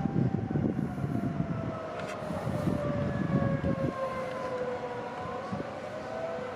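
Outdoor tornado warning siren wailing, its single tone sliding slowly down in pitch and starting to rise again near the end. A low rumble sits underneath for the first four seconds or so.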